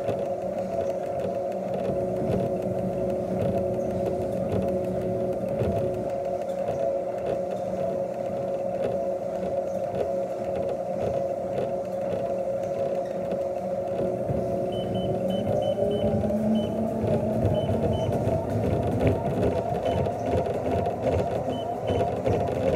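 Treadmill motor running with a steady whine. About two-thirds of the way through, a quick run of short console beeps and then single beeps, and the motor's pitch rises slightly as the speed is raised.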